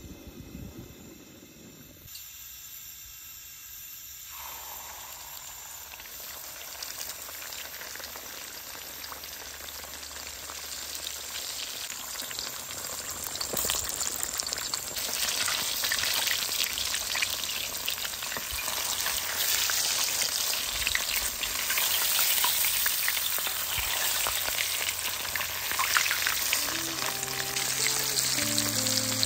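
Hot cooking oil sizzling and crackling in a pan, building up over the first dozen seconds and then holding steady.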